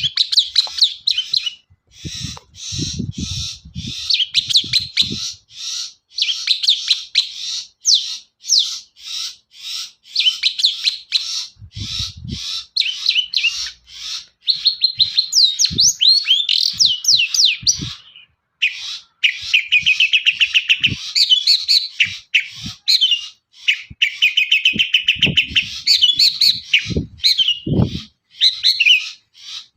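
Long-tailed shrike (cendet) singing a fast, continuous song of rapid chattering notes, trills and short rising whistles, with a brief break past the middle. A few short low thumps come through here and there.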